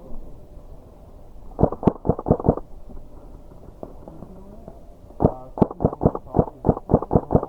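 Airsoft rifle firing two quick strings of shots, about seven and then about a dozen, with a pause between them.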